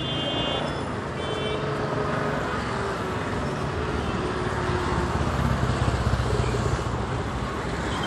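City road traffic: car and taxi engines running and passing close by, with a louder low rumble from a nearby vehicle about five to seven seconds in.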